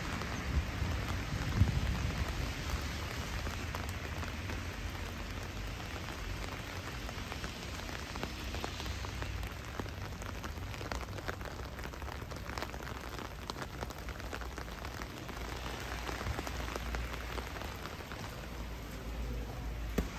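Heavy rain falling: a steady hiss with many sharp drop ticks and a low rumble underneath, and a brief thump about a second and a half in.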